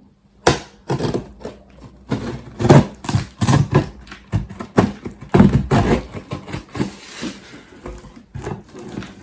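A cardboard delivery box being opened by hand: irregular knocks, scrapes and rustles of cardboard and packaging.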